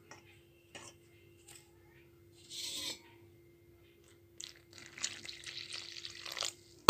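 Water poured in a thin stream into whole-wheat flour in a stainless steel bowl, a steady splashing hiss for about two seconds in the second half. Before it there are a brief rustle of flour and a few light clicks, and a sudden loud noise comes right at the end.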